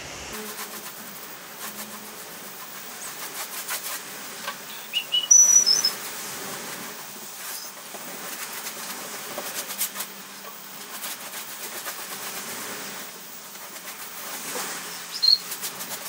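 Paintbrush stroking paint onto a canvas: repeated scratchy swishes, loudest about five seconds in, with a few brief high-pitched squeaks.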